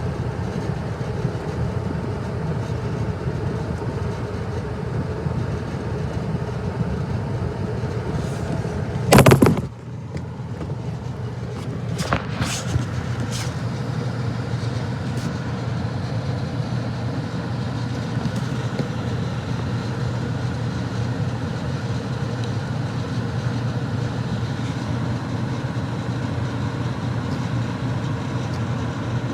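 Comfortmaker 80 gas furnace running with a steady low hum. About nine seconds in there is a sudden loud noise lasting about half a second, followed shortly by a few faint clicks.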